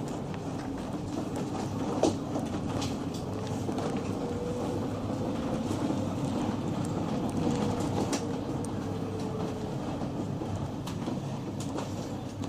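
Mercedes Sprinter minibus on the move, heard from inside the cabin: a steady rumble of engine and road with scattered rattles and knocks, the loudest about two seconds in. A faint whine rises and falls between about four and ten seconds in.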